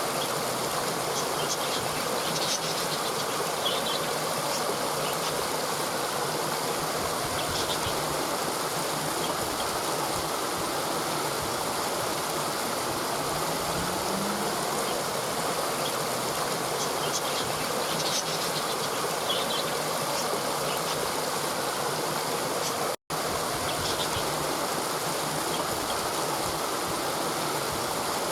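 Waterfall: a steady rush of falling water, with a few faint high chirps over it. The sound drops out for an instant about two-thirds of the way through.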